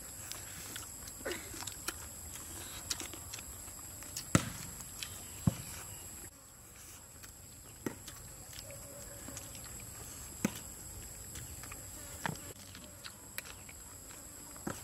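People eating crispy fried chicken and fried rice with their fingers: chewing and mouth smacks, with a few sharp clicks scattered through, the loudest two about four and five seconds in, over a steady faint high background tone.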